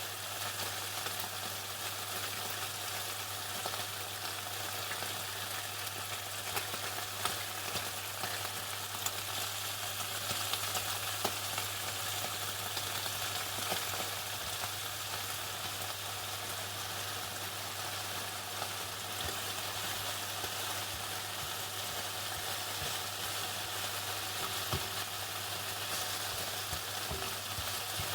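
Chicken deep-frying in hot oil: a steady sizzle scattered with small crackles and pops, over a constant low hum.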